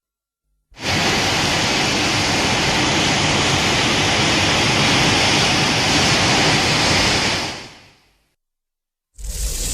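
Monster sound effect: a steady, pitchless rushing hiss that starts about a second in and fades out about eight seconds in.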